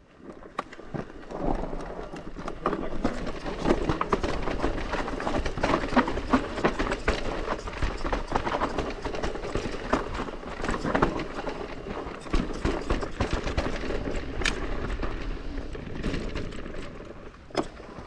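Santa Cruz Bullit e-mountain bike rolling down a steep dirt singletrack: tyres crunching over dirt and leaf litter, with a constant, irregular rattle of clicks and knocks from the bike over bumps and a low rumble beneath.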